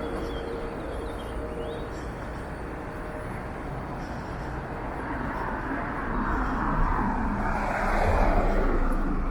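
Street ambience of road traffic, a steady wash of noise that swells near the end as a vehicle passes.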